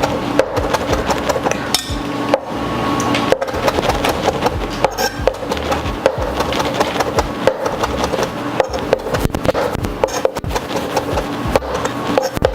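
Kitchen knife chopping fresh cilantro leaves on a cutting board, a fast run of short taps as the blade rocks with its point kept down.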